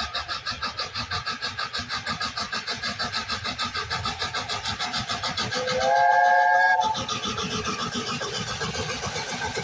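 LNER A4 steam locomotive 'Sir Nigel Gresley' working a train towards the listener with quick, even exhaust beats. About six seconds in, its chime whistle sounds a three-note chord for about a second, sliding up slightly as it opens; this is the loudest sound.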